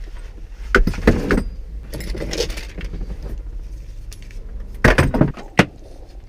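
Rummaging through a car's interior: small hard objects clinking and rattling, with several sharp knocks, over a steady low rumble.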